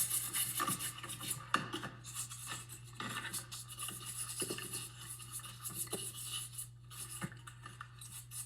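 Light scratching and scattered small clicks and knocks from handling the parts of an electric space heater as it is put back together, over a faint steady low hum.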